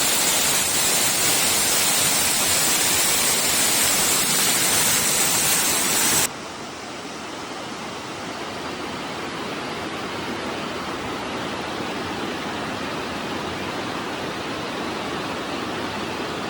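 Waterfall rushing, a steady roar of falling water. About six seconds in it drops suddenly to a quieter, duller rush that continues.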